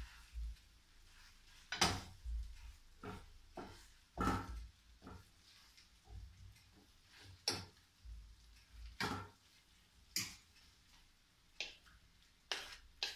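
A wooden spatula knocking and scraping in a frying pan as spaghetti is stirred: irregular clicks and short scrapes about once a second.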